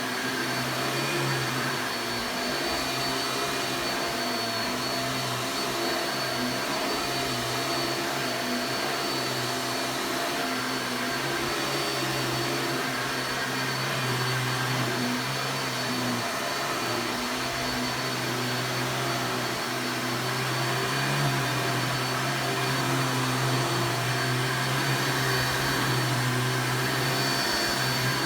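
1990s vacuum cleaner running steadily: a low motor hum with a thin high whine over the rush of air, growing a little louder about two-thirds of the way in.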